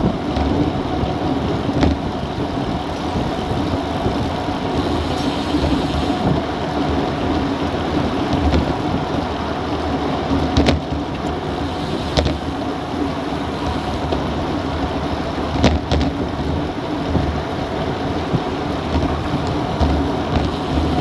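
Steady wind rush buffeting an action camera's microphone on a road bike moving at about 40 km/h, mixed with tyre noise on the road. A few sharp clicks stand out over it.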